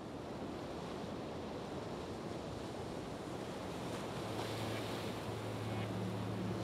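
The opening of an ambient background music track: a steady, surf-like rushing wash, with a low held note coming in about four seconds in.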